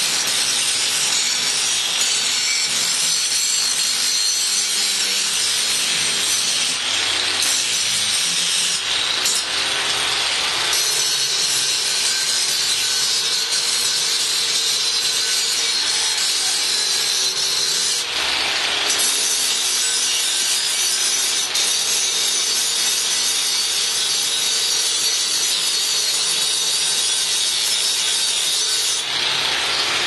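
Handheld angle grinder running against steel bicycle frame tubing: a continuous harsh grinding with a high whine, its grit shifting a few times as the disc is worked along the metal.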